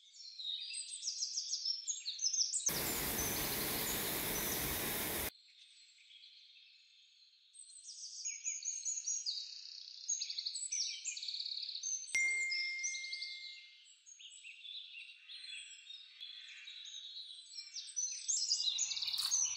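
Several songbirds singing at once in a layered chorus of chirps and trills. About three seconds in, a steady rush of noise drowns them for about two and a half seconds and cuts off suddenly. About twelve seconds in there is a click and then a single held high note lasting over a second.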